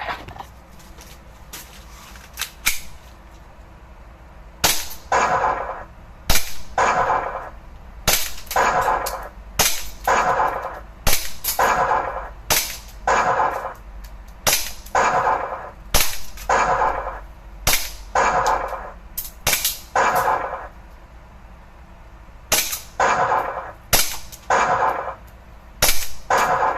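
Electronic scoring target board being shot with a toy gun: each sharp click of a hit sets off a short electronic sound effect, in a long string of hits about one a second, with a brief pause before the last few.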